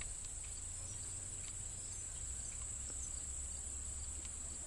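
Steady, high-pitched chorus of insects, with a low rumble beneath it.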